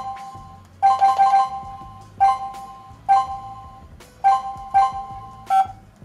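Touch keypad of a CS108 WiFi/GSM alarm control panel beeping as keys are pressed: about ten short two-tone beeps at uneven intervals, some in quick runs of three or four, each fading quickly.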